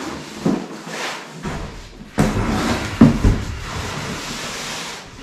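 A heavy cardboard box is hoisted onto a wooden workbench and shoved into place, with cardboard rustling and scraping. It lands with a sudden jump in noise about two seconds in and a sharp knock about three seconds in, then scrapes as it slides across the bench top.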